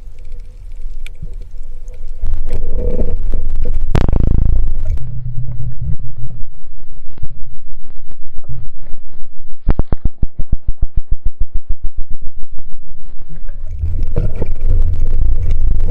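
Muffled underwater rumble of water moving past an action camera's waterproof housing during a swim. In the middle it turns into a fast, regular pulsing with a run of evenly spaced clicks.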